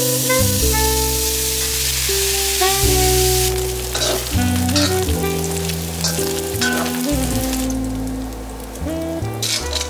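Chopped bacon sizzling as it fries in a stainless steel pan. The hiss is strongest in the first few seconds; after that a metal spatula and tongs click and scrape against the pan as the bacon is stirred. Background music with sustained notes plays underneath.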